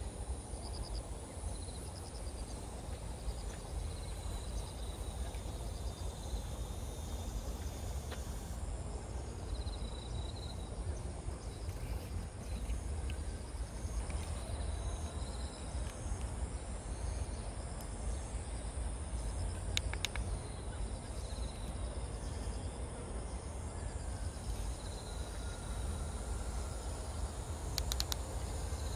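Outdoor ambience of insects chirring in a steady high-pitched drone, with short chirps repeating in rows and a low rumble of wind on the microphone underneath. A couple of brief sharp clicks come about two-thirds of the way through and near the end.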